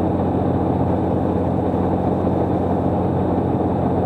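Cirrus SR22's six-cylinder piston engine and propeller droning steadily in flight, heard from inside the cockpit.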